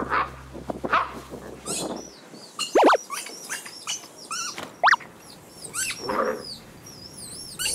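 Dorgi (corgi–dachshund mix) puppy whining and yelping in a string of short high cries, with two loud rising-and-falling cries about three and five seconds in. The cries are a fussing tantrum for the older corgi's toy.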